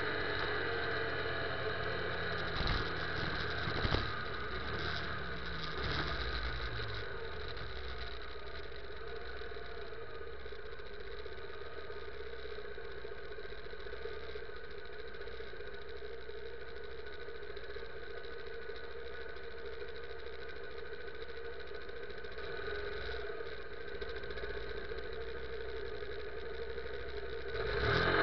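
Motorcycle engine dropping in revs as the bike slows to a stop, with two clicks a few seconds in, then idling steadily. Near the end the revs rise sharply as it pulls away.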